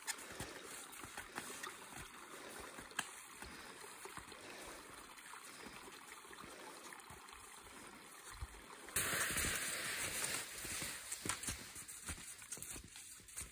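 Cross-country skis sliding over spring snow, a scratchy hiss with a few sharp clicks. About nine seconds in the hiss turns suddenly louder and brighter for a couple of seconds.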